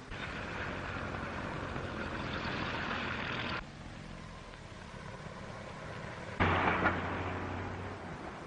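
Car engine and road noise from a moving 1930s car, building over the first few seconds and then dropping off abruptly. About six and a half seconds in comes a sudden, louder burst of noise lasting about half a second.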